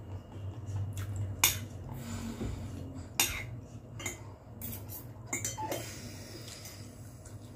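Metal spoon and fork clinking and scraping against a glass bowl of noodles as they are stirred and scooped, in a few sharp clinks. The loudest come about a second and a half and three seconds in, with a cluster more around the middle.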